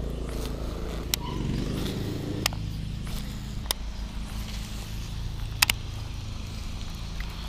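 Baitcasting reel being cranked through a steady retrieve: a low mechanical whir, with a few sharp clicks.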